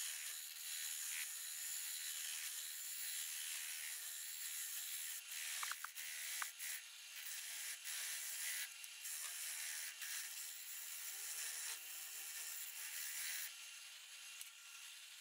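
A turning chisel cutting the ball-shaped handle of a wooden rolling pin spinning on a wood lathe: a steady hissing scrape as shavings come off, with a few sharp ticks about six seconds in.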